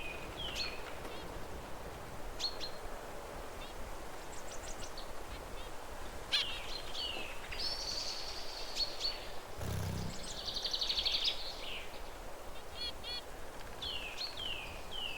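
Zebra finches calling with repeated short chirps that sweep downward in pitch. About ten seconds in there is a brief buzzy, rapidly pulsed phrase of song, just after a short low thump, all over a steady background hiss.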